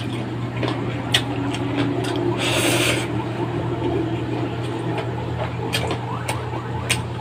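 Someone eating by hand: scattered small clicks and smacks of chewing and of fingers working rice and noodles on a plate, over a steady low hum. A brief hiss sounds about two and a half seconds in.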